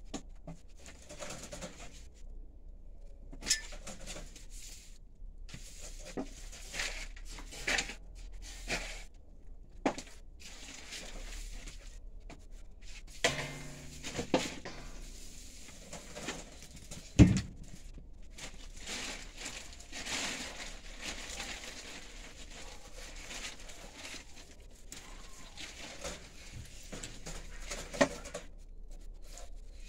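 Dry hay rustling and crackling as rabbits shift and dig in a straw-lined nest box, with scattered light knocks against the wire cage and box. One sharp knock just past the middle is the loudest.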